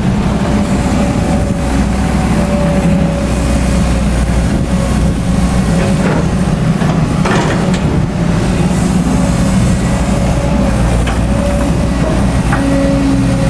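XCMG XE210i hydraulic excavator's diesel engine running steadily under load, with a steady higher whine over the engine hum and a few sharp metallic knocks.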